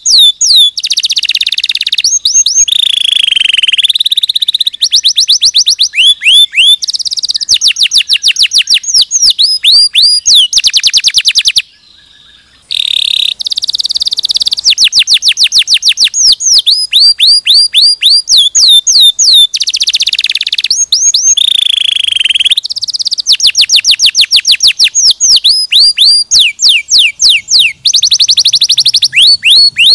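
Domestic canary singing loudly: a long song made of rapid trills, each phrase a quick run of repeated notes sweeping up and down, broken by a few held whistled notes and one short pause about twelve seconds in.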